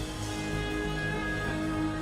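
Soft instrumental worship music with sustained chords and held notes, no voice.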